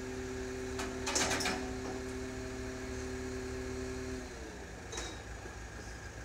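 Crane hoist machinery whining steadily while the suspended building module is lowered, the whine dropping slightly in pitch and stopping about four seconds in. A brief rattle of metallic clatter comes about a second in, and a single click near the end.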